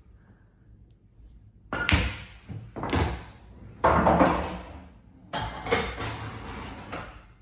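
Pool balls knocking and thudding on a pool table: four loud knocks, the first about two seconds in, each dying away over about a second.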